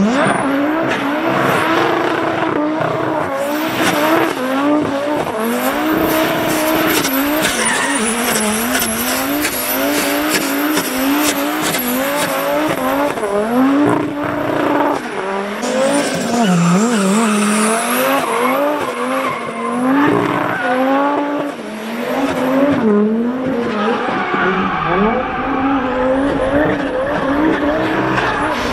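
Volkswagen Scirocco drift car sliding under power: the engine revs up and drops back again and again, over steady tyre squeal and skidding.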